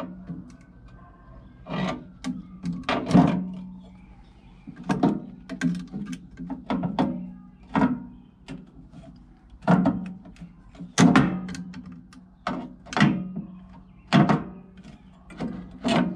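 Sheet-steel guard of an RBG 950 blade-grinder attachment being fitted onto the grinder by hand: a run of irregular metal knocks and clanks, some with a short ring, as the guard bumps against the housing and mounting bolts.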